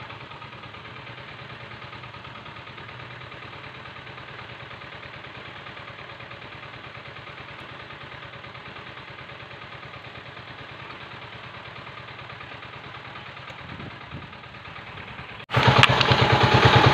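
An engine idling steadily in the background, with an even low pulse, then suddenly much louder and closer about a second and a half before the end.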